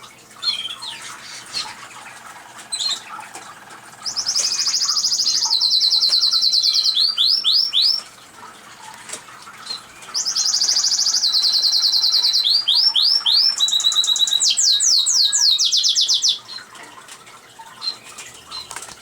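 Male canary singing two long song phrases, each a run of rapid trills and repeated swooping notes, the first about four seconds in and the second from about ten to sixteen seconds; quieter chirps fall in between.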